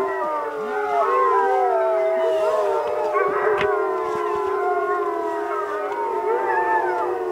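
Several Alaskan malamutes howling together: long, overlapping howls at different pitches, some held steady and others gliding up and down.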